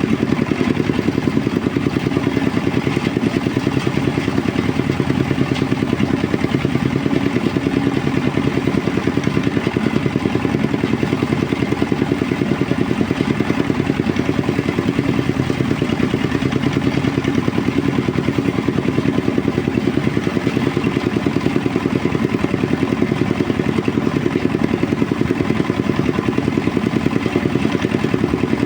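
Engine-driven rice threshing machine running steadily at a constant speed, with an even, fast engine pulse.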